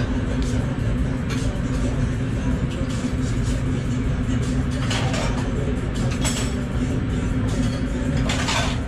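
Restaurant dining-room noise: a steady low hum under indistinct background voices.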